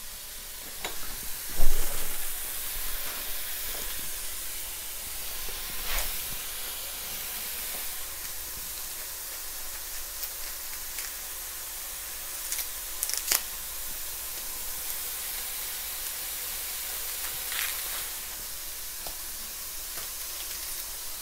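Asparagus and mushrooms sizzling in oil in a pot, a steady hiss of frying. A few sharp clicks and knocks cut through it, the loudest about a second and a half in.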